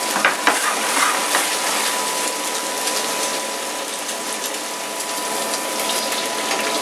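A pollock fillet and melting butter sizzling in a hot frying pan, with a few crackles and pops in the first second or so.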